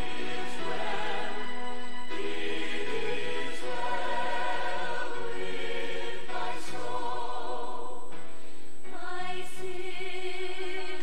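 Choir singing a slow hymn: long held notes with vibrato, changing every second or two.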